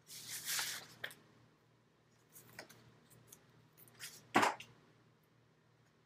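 Paper rustling and crinkling as an African grey parrot picks at and tugs sheets of paper with its beak: a burst of rustling at the start, scattered short clicks and crackles, and a louder sharp crackle about four and a half seconds in.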